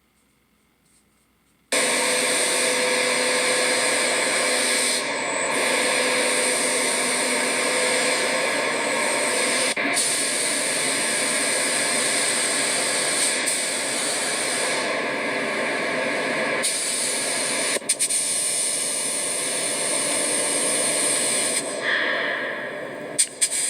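Near silence, then about two seconds in a loud, steady hiss of a compressed-air paint spray gun starts, with a few short dips near the end.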